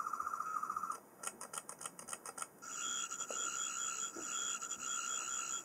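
Toy sonic screwdriver's 4th Doctor sound chip playing its electronic sonic buzz. A fast-warbling tone stops about a second in. After a moment of faint stuttering pulses, a steadier, higher buzz with a warbling overtone starts about two and a half seconds in.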